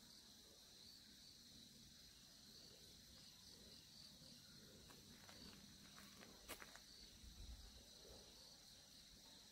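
Faint, steady chirring of insects, with a few light clicks about two-thirds of the way through.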